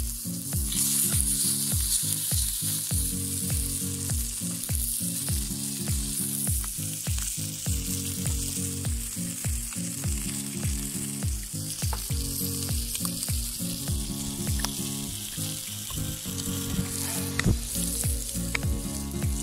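Meat sizzling and frying on a hot stone slab over a wood fire, under background music with a steady beat.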